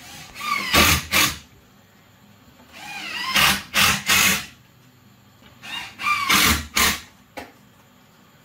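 Cordless drill boring countersink holes into a plywood cabinet gable: three short bursts, each spinning up with a rising whine before the bit cuts in.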